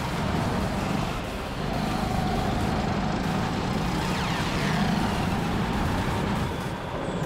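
Go-kart running hard round an indoor track: steady motor and tyre noise, with a brief high squeal near the middle.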